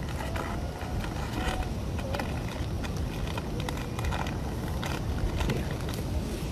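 Steady low rumbling outdoor noise, with scattered clicks and crackles throughout and a few faint, brief squeaky glides in the first half.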